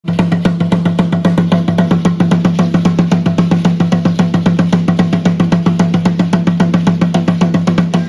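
Tall wooden huéhuetl drum of Aztec ceremonial dance beaten in rapid, even strokes, roughly eight a second, with a low ringing tone held under the beats.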